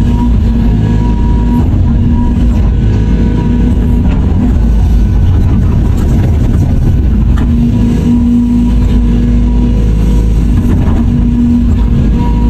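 Remote-controlled model Caterpillar 336D excavator running as it works its boom and bucket: a steady, loud, low mechanical sound with a pitched whine that comes and goes several times.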